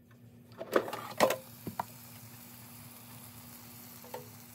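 Air fryer running with a steady fan hum and rush of air. Two sharp knocks come about a second in, then lighter clicks, and one more near the end, as of the basket and food being handled.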